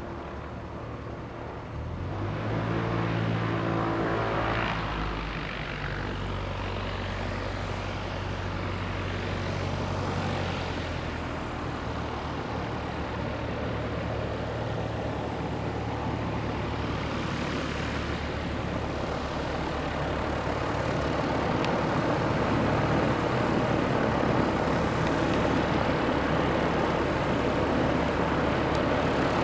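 Robin DR400 light aircraft's piston engine and propeller running. The engine sound comes in strongly about two seconds in, then settles into a steady drone that slowly grows louder toward the end.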